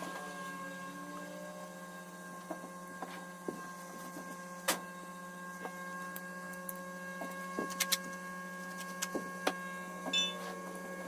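A steady electrical hum with a few steady higher tones over it, broken by scattered light clicks and taps, and a short burst of high chirping about ten seconds in.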